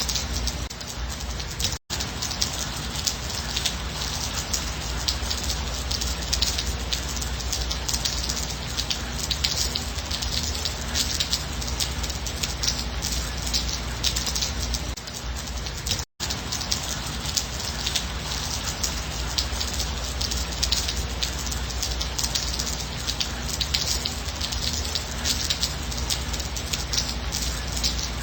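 Steady gentle rain, a dense patter of drops over an even hiss. It cuts out for an instant twice, about two seconds in and again about sixteen seconds in.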